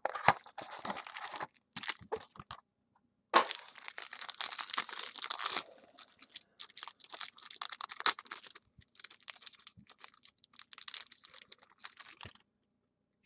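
Trading card pack wrapper being torn open and crinkled, loudest a few seconds in, then softer rustling and light clicks as the cards are slid out and sorted by hand.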